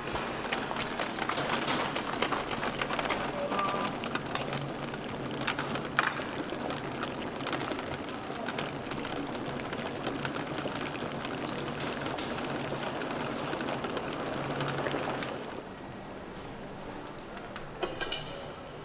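Water boiling hard in a ramen noodle boiler, a steady bubbling hiss with fine crackles while noodles cook in the strainer baskets. It drops away about three seconds before the end, followed by a few light metal clinks.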